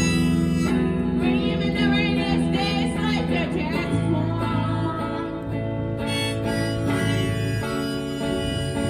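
Blues song played live: a harmonica playing wavering, bending notes over acoustic guitar.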